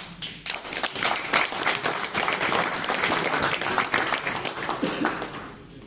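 Crowd applauding, a dense patter of many hands clapping that dies away near the end.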